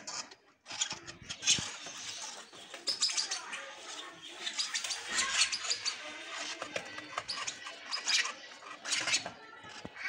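Lovebird chicks chirping in quick, repeated high-pitched calls.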